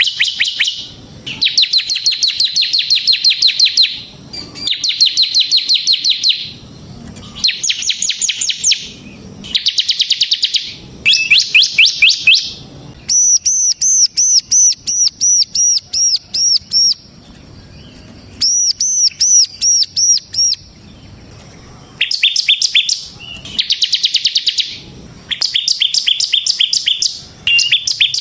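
Bar-winged prinia (ciblek) singing loudly in its rapid rattling 'ngebren' style: repeated fast trilled phrases of about a second each, broken by short pauses. In the middle it switches to slower runs of clear, high repeated notes, about four or five a second.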